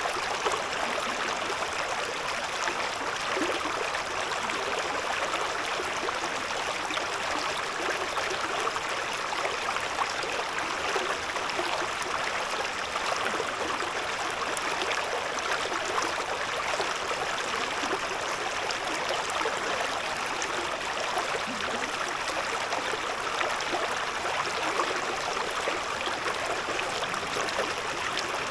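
Shallow river babbling over stones, a steady rushing and gurgling of running water.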